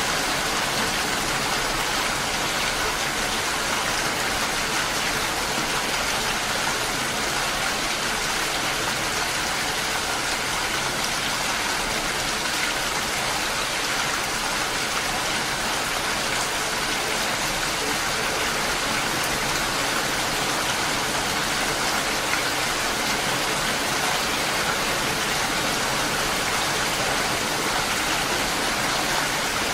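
Steady rain falling, a continuous even hiss of many raindrops on surfaces, with no single drops or thunder standing out.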